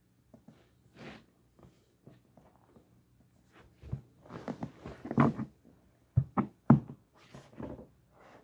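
Knocks, thunks and rustling as ice hockey skates worn on the feet are shifted and moved about. The sounds build up about four seconds in, and the loudest are a few sharp knocks between six and seven seconds in.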